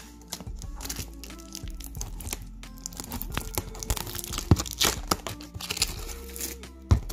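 Cardboard box being opened by hand: tearing and crinkling with sharp crackles, the loudest snaps about four and a half seconds in and just before the end.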